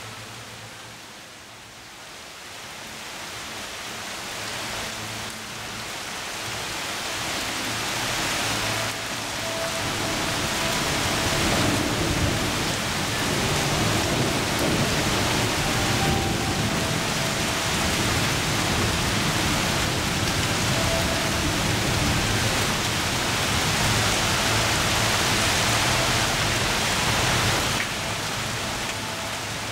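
Heavy rain pouring down as a steady rushing hiss. It grows louder over the first several seconds, then holds.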